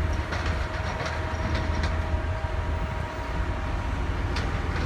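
A steady low mechanical rumble with a faint steady whine above it and a few light clicks.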